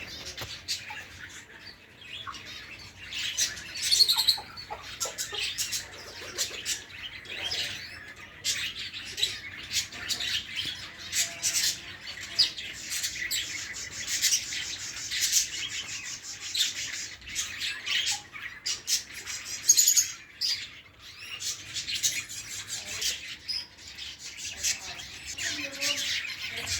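Many birds chirping and squawking together: a dense, continuous chatter of short, high calls with frequent louder peaks.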